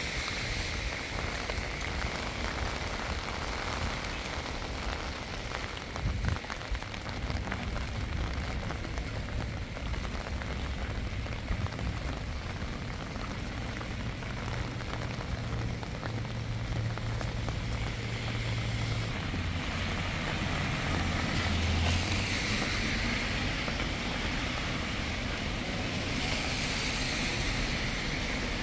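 Steady rain falling, with a vehicle's low engine hum passing in the middle.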